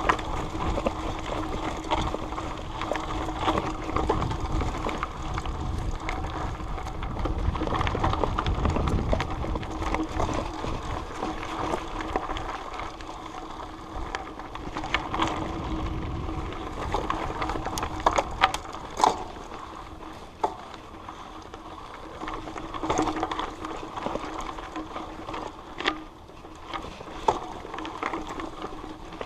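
Trail-riding noise picked up by a loosely strapped chest-mounted camera: steady rumble with rattling and scattered sharp knocks from the jostling. The rumble is strongest in the first ten seconds, and the knocks come most often in the second half.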